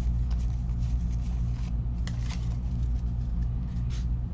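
Steady low hum, with a few light rustles and taps of trading cards being handled.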